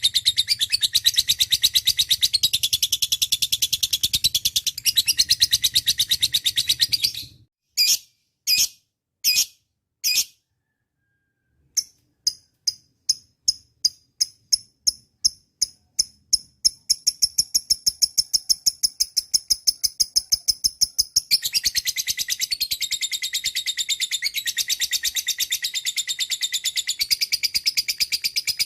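Lovebird chirping in fast, high-pitched strings of repeated notes, the rapid 'nyaut' answering chatter. About a third of the way in it breaks into four separate chirps and a short pause, then starts again slowly and speeds up into a steady rapid trill, with dense chatter returning near the end.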